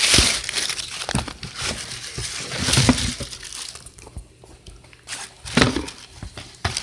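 Shoe-box packaging rustling and crinkling as it is handled and pulled open, in several short bursts.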